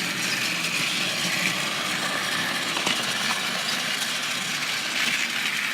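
Battery-powered Trackmaster toy engines running on plastic track: a steady whir of the small motors and gears, with the coaches rattling along behind and a few light clicks.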